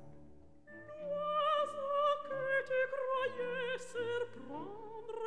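Operatic singing with strong vibrato over orchestral accompaniment; the voice comes in under a second in and holds long notes.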